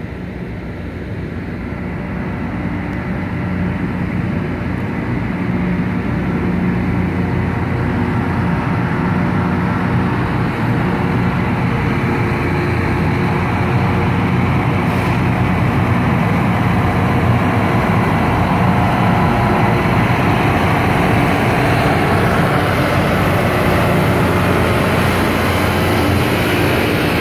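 Loram rail grinder passing close by: its diesel engines hum steadily under the grinding stones scraping along the rail. The sound swells over the first several seconds as the train draws near, then holds steady and loud.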